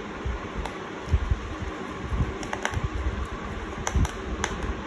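Scattered light clicks and taps of small laptop parts being handled during reassembly, with soft low bumps, over a steady background hiss.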